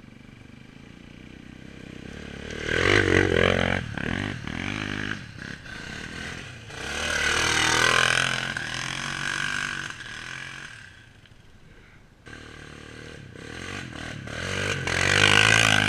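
Quad bike (ATV) engines revving hard as the quads pass close one after another on a dirt trail, with tyres scrabbling and throwing up dirt. There are three loud passes: about three seconds in, around eight seconds, and near the end.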